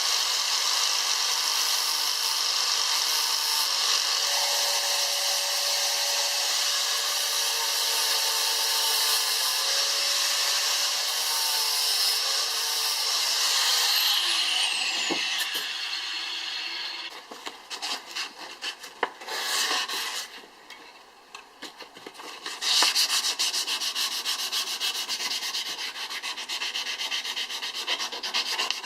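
A power tool runs steadily, then is switched off about halfway through and winds down with a falling whine. After that come rapid, uneven rubbing strokes: the knife being sanded by hand.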